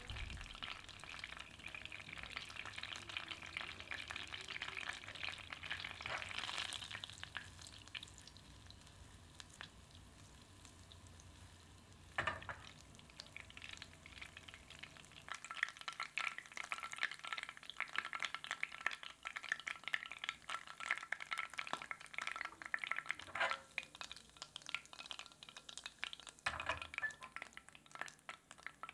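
Butter sizzling and crackling in a pan over a gas flame as it melts and browns, the popping growing denser in the second half as the butter foams. A few single knocks stand out, one about halfway through and two near the end.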